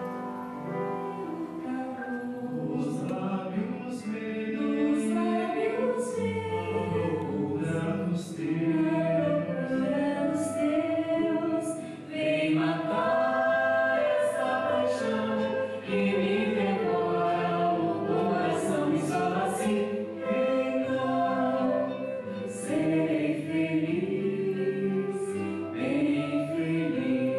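Men and women singing together in harmony as a small vocal ensemble.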